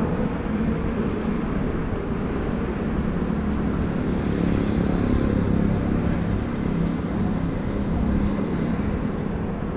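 Steady city street traffic noise: a continuous low rumble of passing vehicles.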